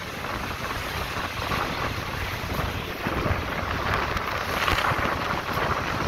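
Passenger train running, heard from an open carriage window: wheels rolling on the rails and wind rushing over the microphone, growing louder about four seconds in.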